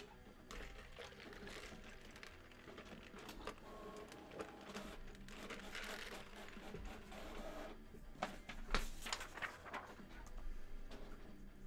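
Paper being handled on a desk: soft rustling and light taps, with a cluster of sharper knocks and clicks toward the end.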